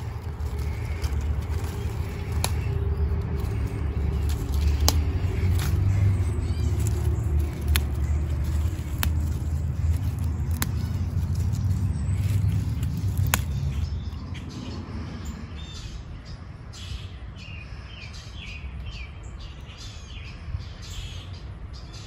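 Plantain and other greens picked by hand: sharp snaps every second or two over a steady low rumble that fades about two-thirds of the way in. Birds chirp near the end.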